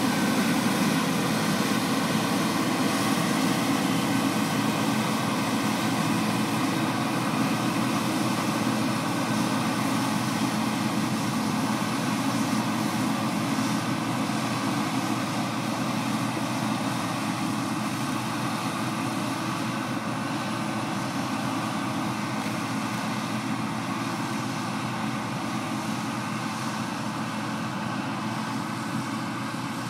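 Claas Lexion 660 combine harvester threshing: a steady drone of engine and threshing machinery with several held tones, slowly fading as it pulls away.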